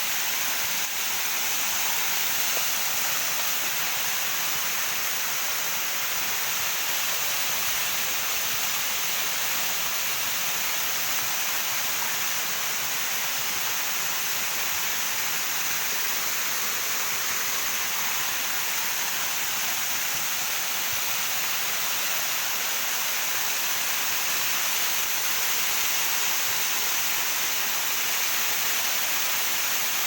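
A waterfall rushing steadily: a constant, even hiss of falling water.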